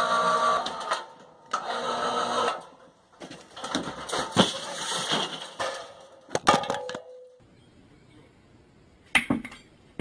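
Electric motor of a corded ladder lift whining steadily in two short runs as it raises a glass window panel, then a stretch of clattering and several heavy crashing impacts about four to seven seconds in. A single sharp whack near the end.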